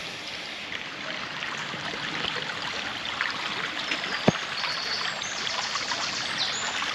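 Shallow brook trickling and babbling steadily over its bed, growing a little louder as it goes. A single click sounds a little past halfway, and a few high chirps come over the water in the second half.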